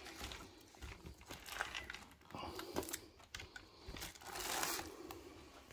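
Clear plastic wrapping crinkling and rustling as a new, still-wrapped RC nitro buggy is handled and set down, with scattered light clicks and a longer spell of crinkling about four seconds in.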